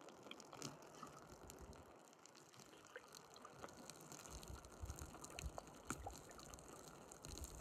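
Faint trickling water with scattered small ticks and drips.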